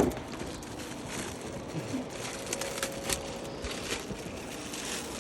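Faint rustling with a few light clicks and taps as the packaging of a boxed RC boat is handled.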